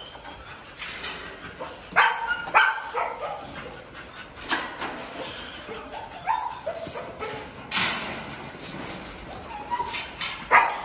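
American bully dogs and puppies in wire kennels barking, twice in quick succession about two seconds in, and whining with short high squeals, among a few sharp knocks.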